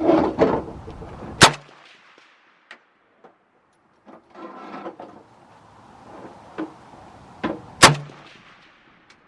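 Two rifle shots from a PSL in 7.62x54R, fired about six seconds apart, each a sharp crack with a short tail.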